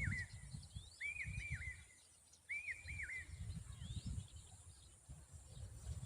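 Common babbler calling in short groups of about three arched whistled notes, one group every second and a half or so, stopping about three seconds in. These are its calls to defend its young. A low rumble runs underneath.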